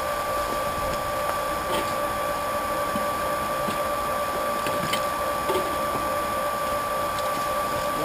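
Small electric pump running steadily with a constant whine, pumping wort through a plate chiller as the last of the wort is drawn from the kettle.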